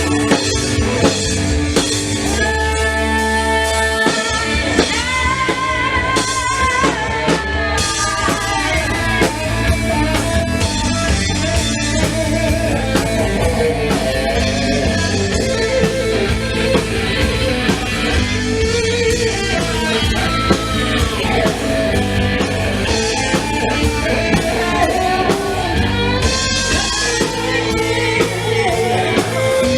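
Live rock band playing a song with a singer, electric guitar, bass and drum kit.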